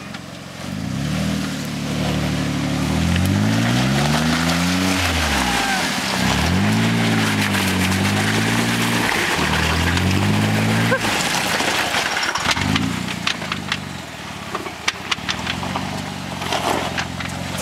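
Jeep Wrangler Rubicon Unlimited's 3.8-litre V6 engine working up a steep loose dirt climb, its revs rising and falling several times under load. After about eleven seconds it settles to a lower, steadier pull while gravel and small rocks crackle and pop under the tyres.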